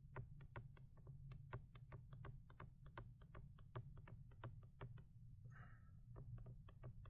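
Faint, quick light clicks and taps of a stylus on a drawing tablet during sketching, about four a second, with a pause and a short soft hiss about five and a half seconds in. A low steady hum sits underneath.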